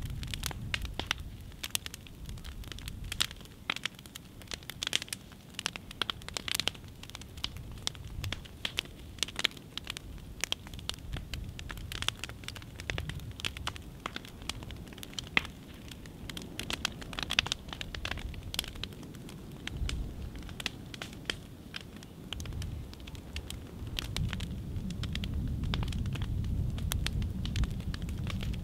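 Upright piano burning in the open: the wooden case crackling and popping with sharp, irregular snaps, over a low rumble that grows louder over the last few seconds.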